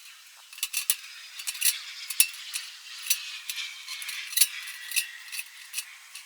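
Hand shears snipping slits into the end of a metal chimney pipe: a string of sharp metallic clicks and crunches, several a second, with a faint drawn-out ring from the thin metal in the middle.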